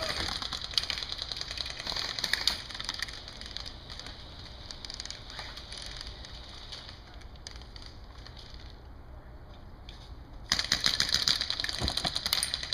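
Airsoft electric guns (AEGs) firing rapid full-auto strings, a fast typewriter-like clatter of clicks. It thins out for a few seconds in the middle, then a louder, closer stretch of continuous fire starts abruptly about two-thirds of the way through.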